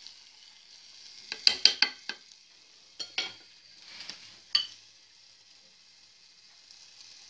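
Onions sizzling steadily in a pan, with a metal spoon clinking against the cookware: a quick run of clinks about a second and a half in, then single clinks near three, four and four and a half seconds. The clinks are the loudest sounds.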